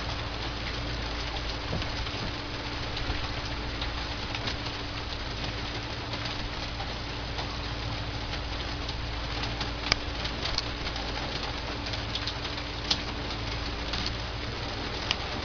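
Steady rumble and hiss of an idling Bradley fighting vehicle, with a constant hum, heard through a small camera microphone. Three sharp clicks come in the last third.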